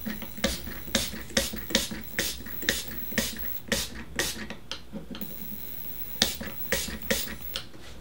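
Hand spray bottle spritzing water in quick short bursts, roughly two a second, at a lit plasma arc lighter, with a pause of about a second partway through.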